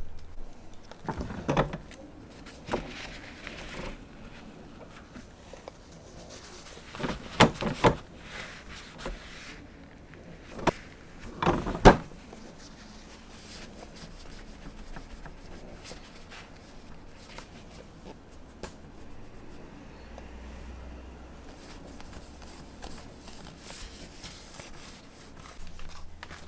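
Kitchen cleaning sounds: scattered knocks and clatters of things being handled and set down, with clusters about seven seconds in and again about eleven seconds in, over quiet room tone.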